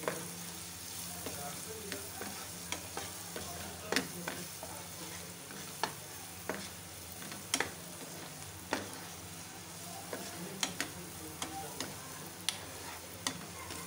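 Spatula stirring chopped vegetables and spices in a nonstick frying pan over a steady sizzle of frying, with sharp knocks and scrapes of the spatula against the pan at irregular intervals, about once a second.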